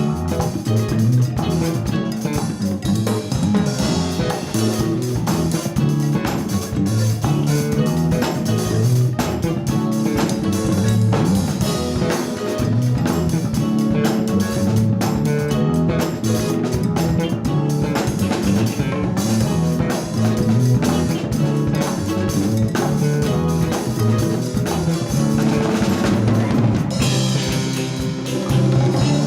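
Live Latin fusion band playing an instrumental: drum kit and percussion keeping a steady beat under guitar and bass.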